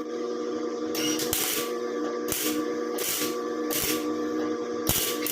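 MIG welder laying a run of short tack or plug welds on a new steel rocker panel: a string of brief crackling bursts, several within a few seconds, over a steady hum.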